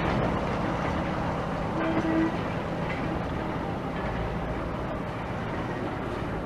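A train running steadily: a continuous rumble with a faint steady hum, a little louder about two seconds in.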